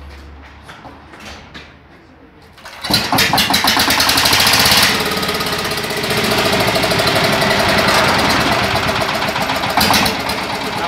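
Greaves single-cylinder diesel engine catching after being turned over by hand, about three seconds in. It fires rapidly and loudly at first, then settles into steady running.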